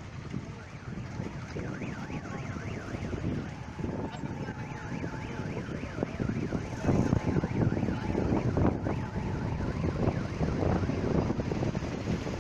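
Boeing C-17 Globemaster III's four turbofan engines on a low landing approach, a rumble and whine growing louder as the jet nears, loudest from about seven seconds in.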